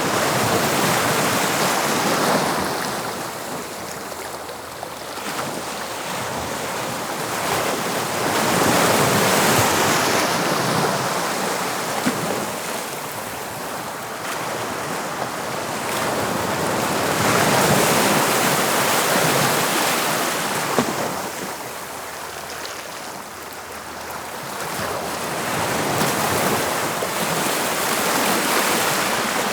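Sea waves breaking in a steady wash of surf that swells and falls away about every eight to nine seconds.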